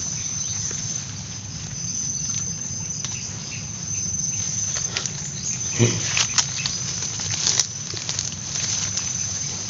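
Water sloshing and nipa palm fronds rustling as someone wades through a flooded mangrove swamp, with a few sharper snaps and splashes around the middle. A steady high insect drone runs underneath.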